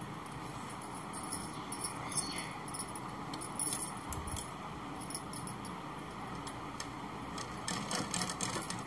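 Domestic straight-stitch sewing machine sewing along a fabric neckline. Its mechanism clicks and rattles in irregular spells, loudest from about a second and a half to four seconds in and again near the end, over a steady background hiss.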